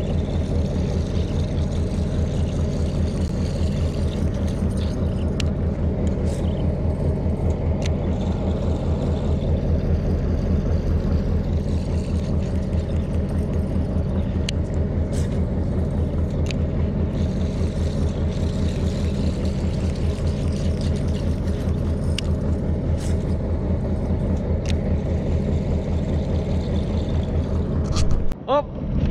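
Outboard boat motor running steadily at low speed, a constant low drone with a fast even pulse, with a few faint clicks over it.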